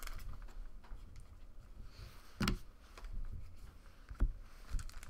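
Trading cards and wax packs being handled at a table: quiet rustling with a few short soft knocks, one about halfway through and two near the end, as cards and packs are set down.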